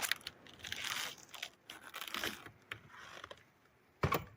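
Irregular crinkling and crunching handling noise, then a single sharp knock about four seconds in.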